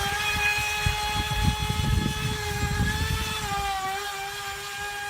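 FT012 RC speed boat's brushless electric motor running at speed: a steady high whine whose pitch sags briefly a little over halfway through, over a low rumbling noise that eases off in the second half.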